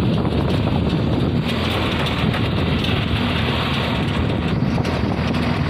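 Steady rush of wind on the microphone from riding in the open back of a moving vehicle, with the vehicle's running and road noise underneath.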